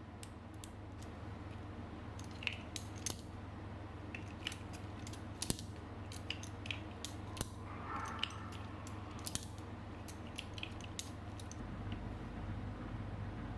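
Hands handling a boxed RC car and its plastic packaging: irregular sharp clicks and taps, with a short rustle about eight seconds in, over a steady low hum.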